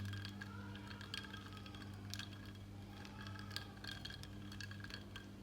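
Irregular light clicks and taps, some with a brief glassy ring, over a steady low hum.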